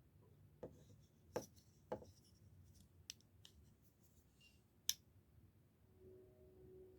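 Faint clicks and taps of a folding pocket knife being handled, about six small knocks with one sharper click near five seconds in. A faint steady hum starts near the end.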